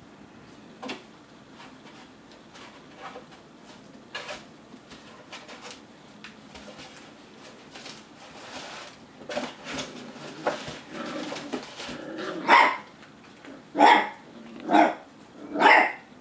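Eight-week-old puppies at play: faint scattered knocks and small noises for about twelve seconds, then a puppy barks four times, about once a second.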